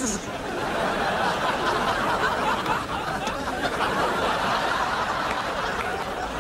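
Studio audience laughing, a sustained wash of laughter that eases slightly near the end.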